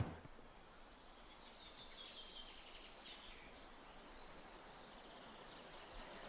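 Faint outdoor ambience of birds chirping, quick high chirps mostly in the first half, over a low steady hiss.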